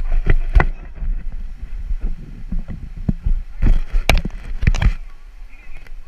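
River water splashing and sloshing over a steady low rumble, with a few sharp splashes or knocks, a cluster of them loudest about four seconds in.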